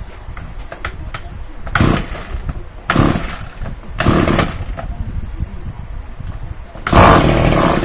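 Small cheap GMC petrol engine running at idle and revved up in short bursts four times, the last burst near the end the loudest and longest. It runs pretty well despite stale, rotten-smelling petrol and a broken-off throttle arm.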